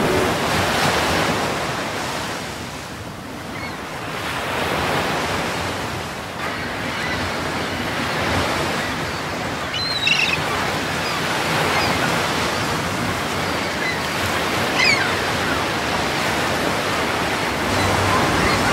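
Rushing water like surf, a steady wash of noise that ebbs and swells slowly.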